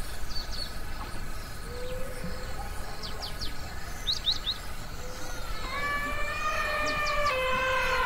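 Savanna ambience: several short bird chirps and quick falling whistles, over a low steady background noise. From about six seconds in, a long held pitched call with several overtones rises above everything else and steps slightly in pitch near the end.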